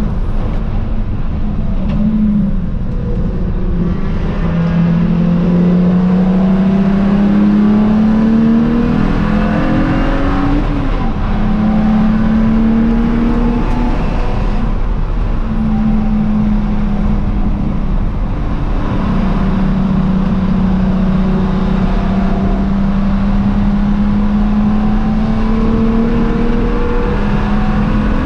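BMW E92 335i race car's N54 twin-turbo inline-six engine at racing speed. Its pitch climbs over several seconds, drops sharply about ten seconds in, and climbs slowly again near the end.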